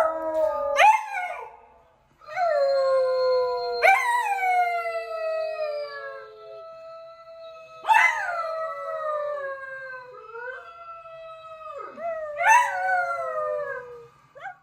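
A dog howling in long, drawn-out howls, with a short break about two seconds in and fresh rises in pitch every few seconds.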